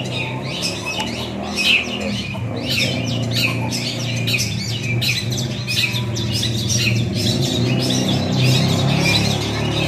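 Several caged long-tailed shrikes (cendet) calling at once in a dense, continuous stream of short, sharp calls, over a low steady hum.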